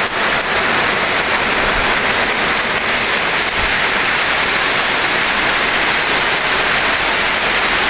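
Heavy rain pouring down steadily on fields and garden plants, a continuous even hiss.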